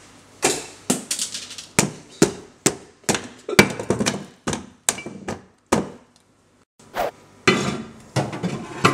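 Mixing in a pan: repeated hard knocks and clatters, about two a second, as the spoon and the contents strike it. There is a brief pause about six seconds in, then faster clattering.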